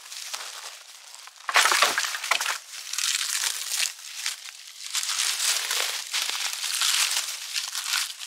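Dry kindling being snapped and crunched by hand: repeated crackling, crunching bouts, with the loudest cluster of sharp snaps about a second and a half in.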